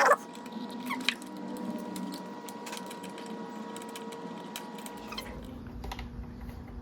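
Hand-tightening a bolt into a motorcycle tail-tidy mount: light clicks and ticks of the metal hardware and tools, a sharp click at the start and another about a second in. A steady faint hum runs underneath and fades after about five seconds.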